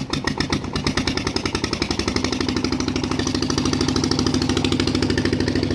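Engine of a concrete mixer machine running with rapid, even pulses, about ten a second, over a steady hum.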